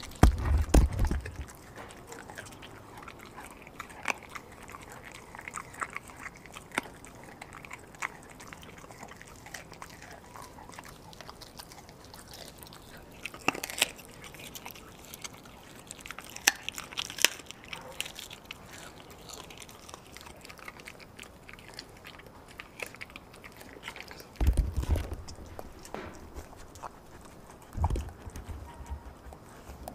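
A German shepherd–pit bull mix dog chewing raw meat and bone, with wet biting and crunching clicks all the way through. There are a few heavier thumps about a second in and again near the end.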